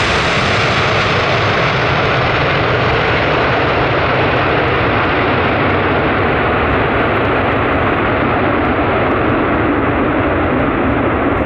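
Jet engines of a Boeing 757-330 passing on landing: a loud, steady roar that grows duller as its high end steadily fades, the aircraft moving away.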